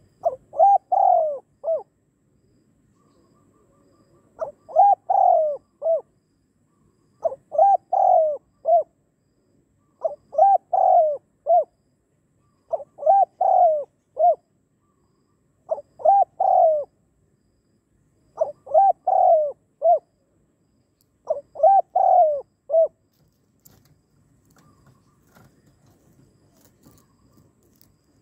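Spotted dove cooing: eight short phrases of several quick coos each, about one phrase every three seconds, stopping about 23 seconds in.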